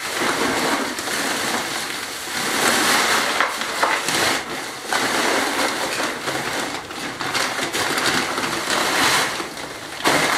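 Sand and gravel pouring from a bag into the gap under a stone step slab to pack it up: a continuous gritty rush that swells and eases several times.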